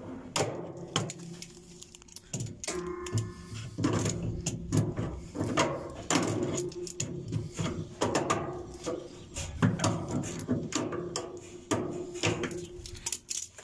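Irregular clicks, knocks and rattles of hands and pliers working on a top-load washing machine's metal cabinet and parts while a spring clamp is fitted onto the drain hose, with a short squeak about three seconds in.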